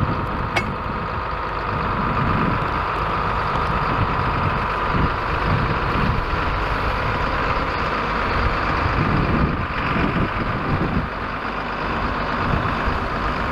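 John Deere farm tractor's diesel engine running steadily under load as it tows a stuck ride-on toy tractor out of deep snow on a strap.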